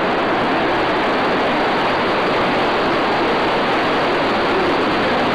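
Steady rushing of water, an even unbroken roar like a waterfall or fast stream.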